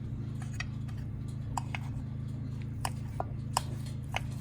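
Scattered light clicks and clinks of dishes and utensils being handled, a few of them ringing briefly, over a steady low hum.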